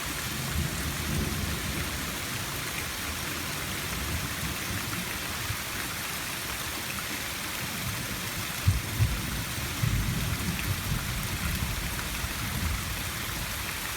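Steady rain hiss with uneven low rumbles of thunder underneath, the rumbling strongest about nine to ten seconds in.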